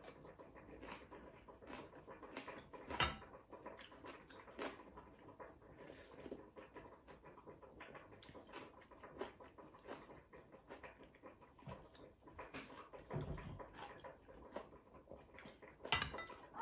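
Faint eating sounds: a spoon and fork clinking now and then against ceramic bowls, with chewing in between. The loudest clink comes about three seconds in.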